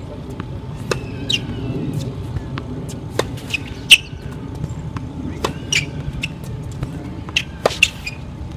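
Tennis balls being struck with forehands and bouncing on a hard court: a series of sharp pops a second or two apart, the loudest about four seconds in. Short high chirps sound between the hits.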